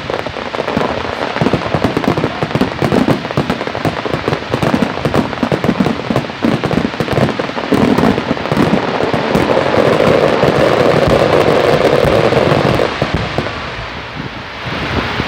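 Fireworks crackling and popping loudly in a dense, rapid barrage, with a steadier rushing sound joining in from about ten seconds. The barrage thins out and dies down near the end.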